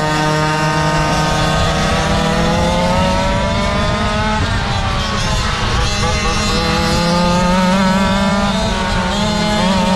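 Small two-stroke engines of GoPed Go-Quad karts running under way, the pitch climbing over the first few seconds, dropping about four and a half seconds in, then rising and wavering again as the throttle changes.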